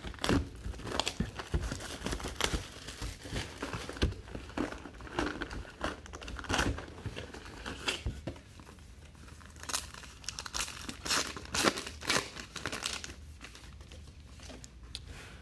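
Plastic and foil wrappers of trading-card packs crinkling and tearing as they are opened by hand, with irregular rustles and crackles.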